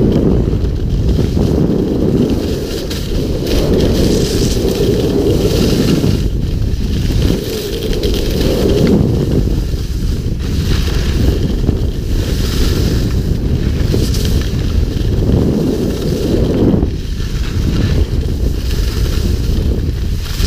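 Wind rushing over the microphone of a helmet or body-mounted action camera on a skier moving downhill, a loud low rumble that swells and eases every few seconds, with the hiss of skis sliding over packed snow.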